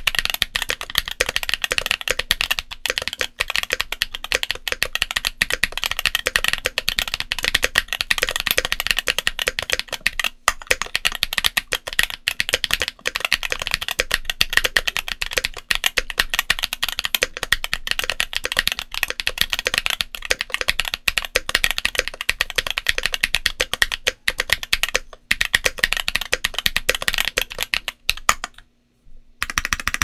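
Fast, continuous typing on an Ajazz AC067 mechanical keyboard with MMD Princess Tactile 60 g tactile switches and Cherry-profile Dolch ABS keycaps, a dense patter of keystrokes. The typing stops shortly before the end.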